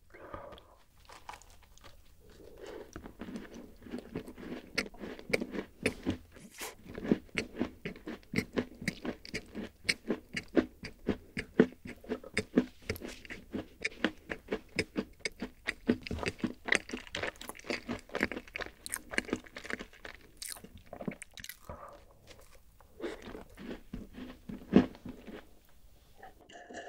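Close-miked chewing of a crunchy chocolate-chip rice-oat cookie: a bite, then a long run of crisp crunches, about three or four a second.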